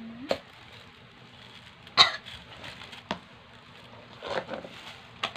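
Plastic hand mixer being handled and turned over while it is unwrapped: scattered clicks and knocks of its plastic body, the sharpest about two seconds in, with a short rustle of the plastic bag near the end.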